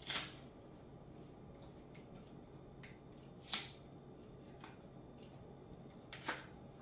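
Green plantain skin being peeled off by hand: three short tearing scrapes, the loudest about halfway through, with a couple of small clicks between them.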